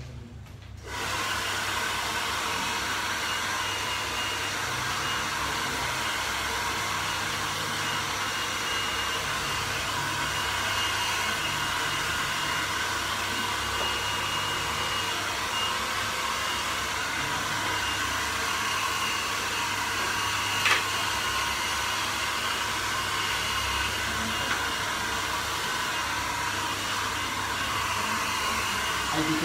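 Hair dryer switched on about a second in, then running steadily: rushing air with a faint steady whine. One short click partway through.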